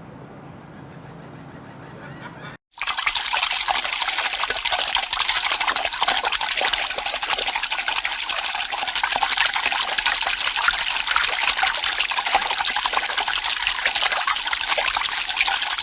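Water rushing and splashing in a steady, loud, unbroken stream that starts abruptly about three seconds in, after a faint stretch.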